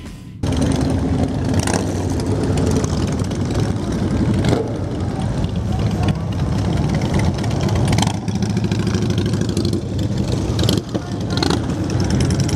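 Several cruiser motorcycle engines running at low speed as a group of bikes rolls past, a dense steady engine sound with a few brief louder swells.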